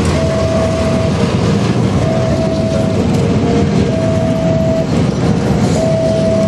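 A train running past with a steady rumble. Over it, a two-tone warning signal alternates between a higher and a lower note, about one note a second.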